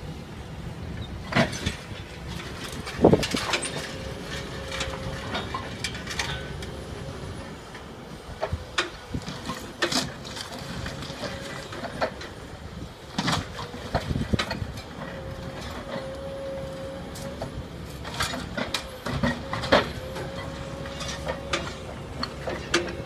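Tracked hydraulic excavators working demolition rubble: a steady diesel engine rumble with a faint steady whine, broken by irregular sharp clatters and crashes of broken brick and concrete being grabbed and dropped by a demolition grab.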